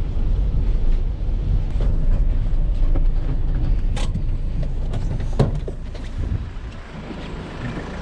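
Vehicle engine and road rumble, with a couple of sharp knocks about four and five and a half seconds in; the rumble eases near the end.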